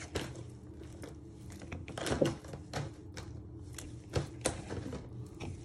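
Raw chicken thighs being handled and set into a plastic bowl: soft scattered taps, knocks and clicks, the loudest about two seconds in and again around four seconds in, over a faint steady hum.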